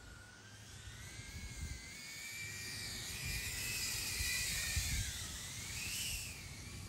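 DarwinFPV CineApe 25 cinewhoop FPV drone flying past, its small motors and propellers making a high whine that rises and falls in pitch with throttle and distance. It is loudest around the middle and fades near the end.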